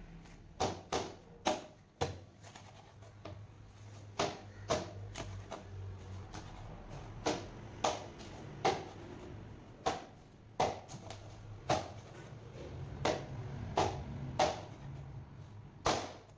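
Large knife chopping a red snapper into steaks on a chopping board: about eighteen sharp knocks at an uneven pace, often in quick pairs, as the blade cuts through the fish and strikes the board. A low steady hum runs underneath.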